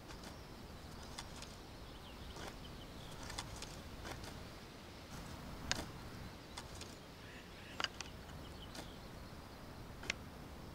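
Quiet background ambience with a scattered handful of short, sharp clicks and knocks, the clearest about six, eight and ten seconds in, and a few faint high chirps.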